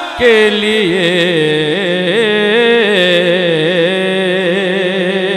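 Male naat reciter singing one long, ornamented held note into a microphone, the pitch wavering and turning without breaking into words.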